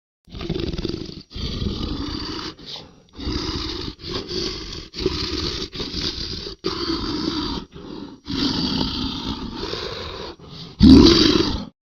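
Monster growl and roar sound effect: a run of about nine rasping growls with short breaths of silence between them, ending in the loudest roar near the end, which cuts off suddenly.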